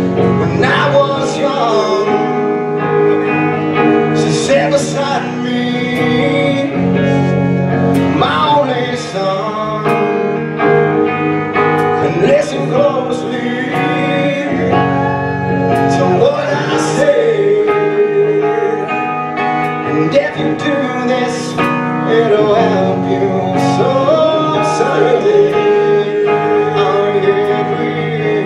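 Live rock band playing a song, heard through the venue's PA: electric guitars, drums with cymbal hits, and a man singing.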